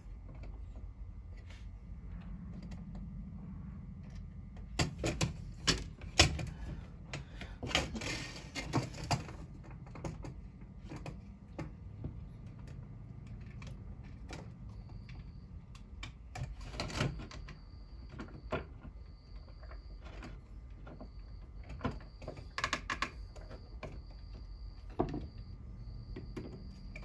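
Scattered small clicks and taps of a model train car's plastic and metal parts being handled and fitted on a workbench, with clusters of clicks about five to nine seconds in and again later on, over a low steady hum.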